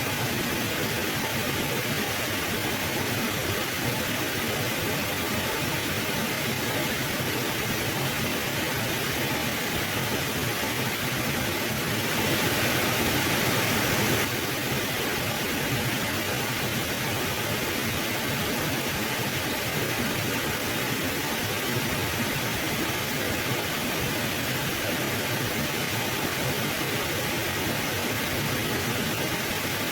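A mountain river flowing, giving a steady, even rushing of water. The rush swells slightly for a couple of seconds about twelve seconds in.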